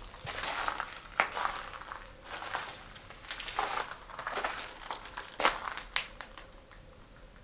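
Footsteps crunching and scraping over rubble and fallen debris on a concrete floor, in an irregular series, with sharper crunches about a second in and about five and a half seconds in.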